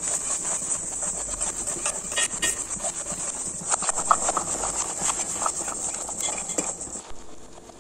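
Steel spoon knocking and scraping against a steel pot while stirring thick dal, in an irregular run of clinks and taps over a steady high hiss. The stirring dies away near the end.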